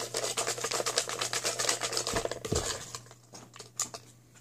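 Folded paper raffle slips rustling and crinkling as a hand stirs them inside a plastic wastebasket, with two dull knocks against the bin a little after two seconds in; the rustling dies away about three seconds in.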